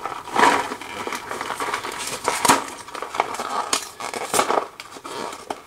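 Plastic snack wrapper crinkling and crackling in irregular bursts as it is handled to be opened.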